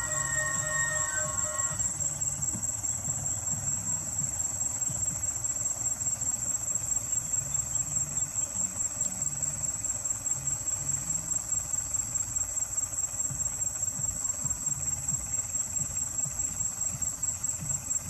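Insects chirring in a steady, high, even buzz. A held tone with several pitches fades out about two seconds in.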